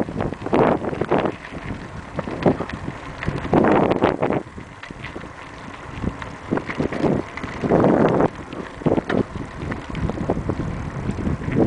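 Wind buffeting the microphone of a camera carried on a moving bicycle, coming in repeated gusts. Frequent short knocks and rattles come as the bike rolls over the rough road surface.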